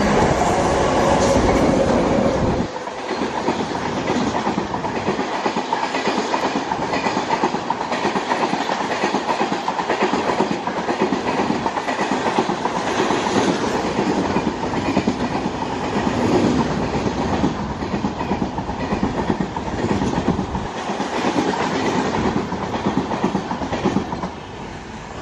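WAP-7 electric locomotive passing at speed with a loud low hum for the first couple of seconds. Then the LHB coaches rush past with wheel clatter over the rail joints, and the noise drops away near the end as the last coach clears.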